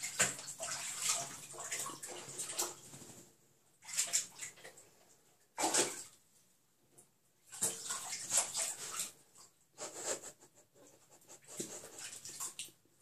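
Bobcat splashing and pawing about in water in a bathtub, in irregular bursts separated by short quiet gaps.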